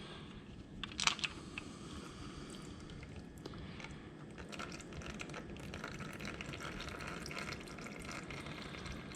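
Faint trickle and drip of engine oil running out of a KTM motorcycle's oil screen port as the screen is pulled, with a couple of sharp metal clicks about a second in.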